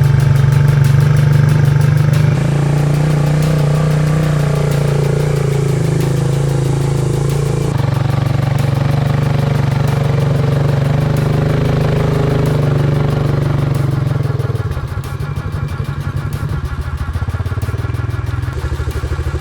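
Quad bike engine running as it is ridden, a steady low drone that changes abruptly a few times.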